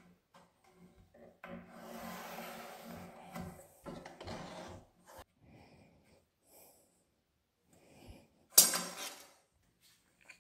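Wood rubbing and scraping on plywood as a line is marked and a drawer slide is fitted, in two stretches in the first half, with fainter handling after and one sharp knock near the end.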